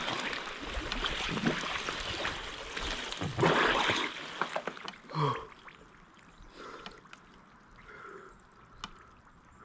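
Icy water sloshing and splashing in a tub as a person sinks into it up to the neck, with a short gasp about five seconds in; after that the water settles and only quiet breathing is left.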